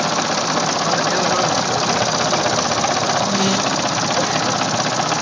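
Student-built piston air compressor running steadily, a fast continuous mechanical clatter as it pumps up pressure.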